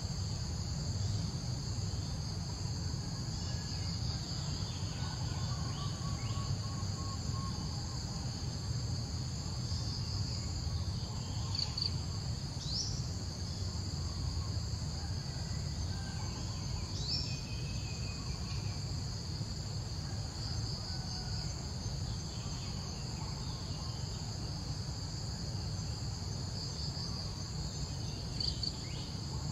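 Steady chorus of insects, a continuous high-pitched trilling drone, with a few faint short chirps over it.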